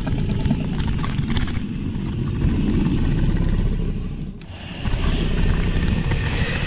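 Dragon sound effect: a steady, low rumbling rush that dips briefly about four seconds in, then picks up again.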